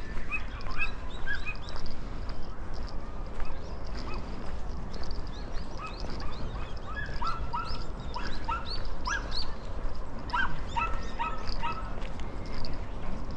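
Short, high-pitched animal calls repeated in quick runs, with a denser and louder run in the second half, over a steady low outdoor background.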